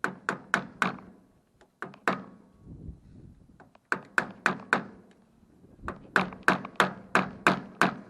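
Hammer blows on the steel double roller chain of a hydraulic drive coupler, driving out a pin to take the chain apart. They come in quick runs of about three blows a second, with a single blow between the first two runs.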